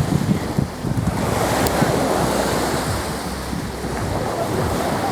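Sea waves washing ashore, with wind buffeting the microphone in an uneven low rumble.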